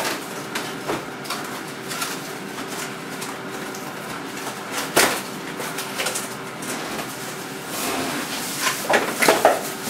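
Cardboard box and plastic wrapping handled while a small coffee machine is unpacked: scattered rustles, scrapes and knocks, the sharpest about five seconds in, with more rustling near the end. A faint steady hum runs underneath.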